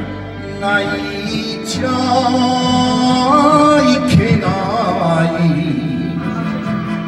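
A man singing a Japanese song into a handheld microphone over a karaoke backing track, both coming through a small amplifier.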